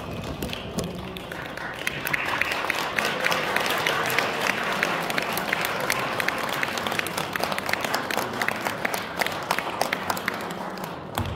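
Audience applauding, starting about two seconds in and dying away near the end.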